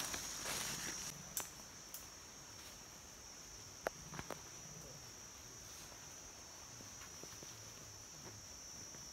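Steady high-pitched drone of forest insects. Over it come a few sharp snaps of twigs and dry leaf litter underfoot, the loudest about four seconds in, followed quickly by two smaller ones.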